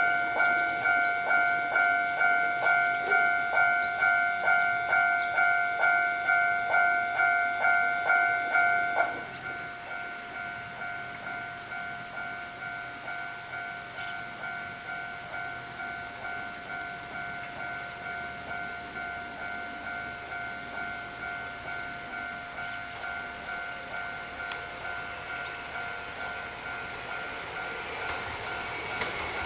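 Japanese railway level-crossing warning bell ringing, an electronic ding repeating about one and a half times a second. About nine seconds in it drops sharply to a much quieter ring and keeps going.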